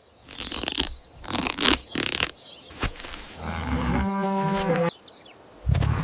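A cow mooing once, a level call about a second long, about four seconds in. Before it come several short, sharp noisy bursts, and a low rough burst comes near the end.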